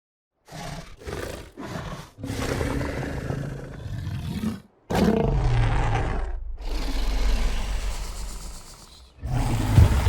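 Spinosaurus roar sound effect: three short growls, then two long roars, the second falling in pitch, with another roar beginning near the end.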